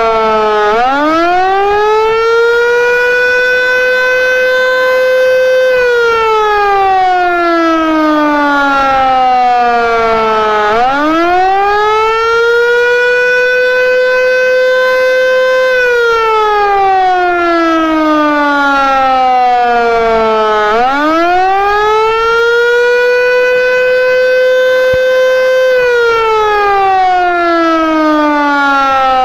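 Outdoor warning siren sounding a wail, loud and steady. On each cycle the pitch climbs quickly, holds high for about four seconds, then slides slowly back down. The cycle repeats about every ten seconds.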